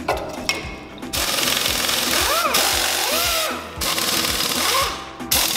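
Pneumatic air ratchet running in three bursts, undoing a nut on a line fitting, after a few clicks in the first second.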